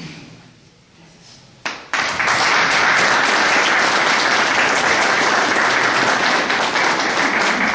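Audience applauding; the clapping breaks out about two seconds in and carries on steadily.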